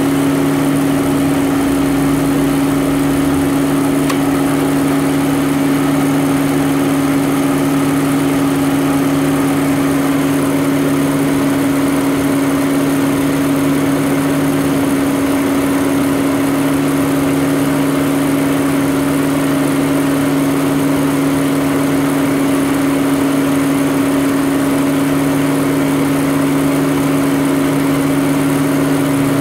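Volvo V70 classic's five-cylinder engine idling steadily with a constant hum, heard up close beside the belt-driven air-conditioning compressor pulley.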